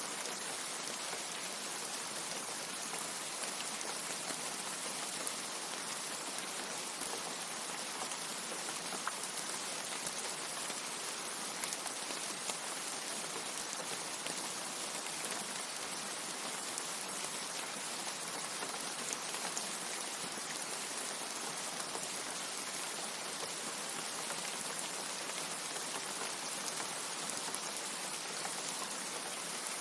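Steady rain falling: an even hiss with scattered sharper drop hits, holding constant without pause or thunder.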